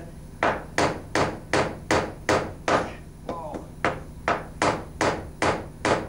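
Hammer driving a nail into a wooden birdhouse panel: a steady run of sharp blows, about two and a half a second, with a brief voice sound about three seconds in.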